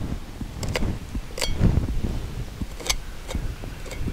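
Steel tuck pointer clicking and scraping against concrete block and fresh mortar while mortar is flicked out of a weep spout: about six short, sharp clicks at uneven intervals.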